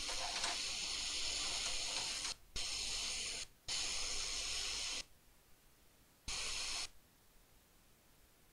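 Hot air rework station blowing a steady hiss of air onto the back of a phone's circuit board to melt the charging port's solder. The hiss cuts out and back in twice, stops about five seconds in, and returns once briefly.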